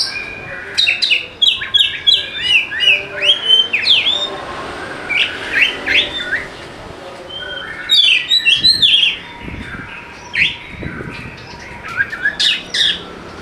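Oriental magpie-robin (kacer) singing a fast, varied song of short chirps and whistled notes in bursts, with brief pauses between phrases.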